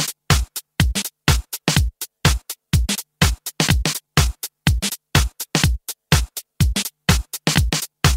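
Background music: a drum-machine beat, a deep kick about twice a second with crisp hi-hat and snare hits between.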